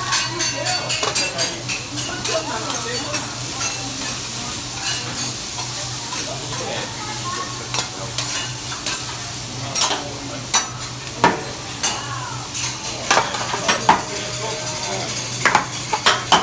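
Vegetables and rice sizzling on a teppanyaki steel griddle, with metal spatulas clicking and scraping against the hot plate; the clicks come scattered, then in quick clusters toward the end.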